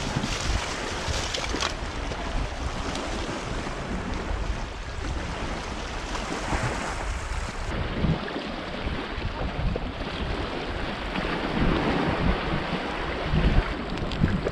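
Steady wind buffeting the microphone over the wash of sea surf.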